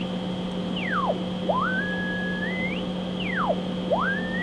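Icom IC-201 transceiver's receiver audio on upper sideband: the whistling beat tone of a test-generator signal, its pitch sliding as the tuning knob is turned. The tone swoops down to a low pitch and climbs back up in steps twice, over a steady low hum.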